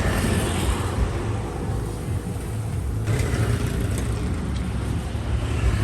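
Steady road-vehicle noise: a low engine hum with traffic.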